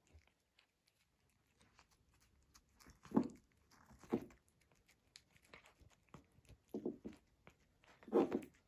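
Siberian kitten eating a strawberry pancake: chewing and biting sounds, with faint small clicks throughout and four louder bites about three, four, seven and eight seconds in.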